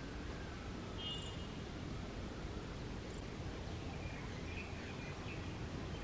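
Outdoor ambience: a steady low background rumble with a few faint, short bird chirps, once about a second in and again around four to five seconds in.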